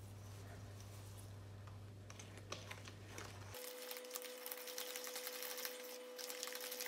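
Wire whisk beating flour into a soft cookie batter in a stainless steel bowl: a faint, quick patter of light ticks as the tines scrape and tap the metal, starting about halfway through. A low steady hum sits under the first half.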